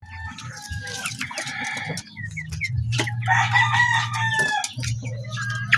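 Young Rhode Island Red chickens, about five weeks old, calling: short high peeps and chirps with a longer, harsher call in the middle. A steady low hum runs underneath.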